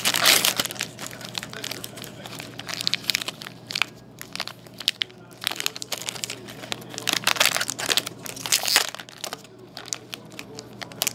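Foil wrapper of a 2013-14 Artifacts hockey card pack being torn open and crinkled by hand, in irregular crackling bursts that are loudest at the very start and again about eight seconds in.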